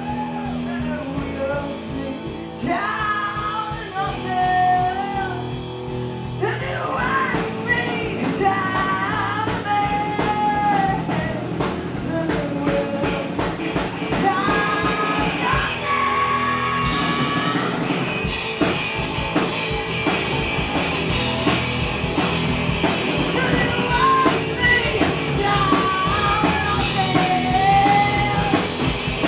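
Live punk rock band playing: electric guitar, bass guitar and drum kit, with the singer singing and shouting over them.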